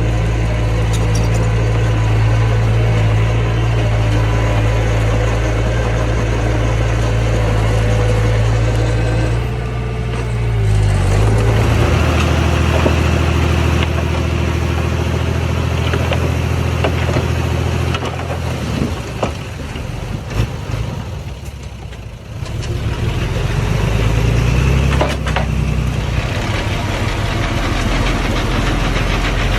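Engine of earthmoving machinery running steadily, its speed changing several times: it shifts about ten seconds in, turns rougher with scattered clanks a few seconds later, and rises again near the end.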